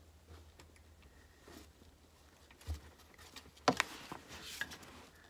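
Faint scattered clicks and taps of gloved hands working the gold retaining clips on the top-mount pins of a BMW X5 E53 rear air strut. There is a dull knock about two and a half seconds in and a cluster of sharper clicks about a second later.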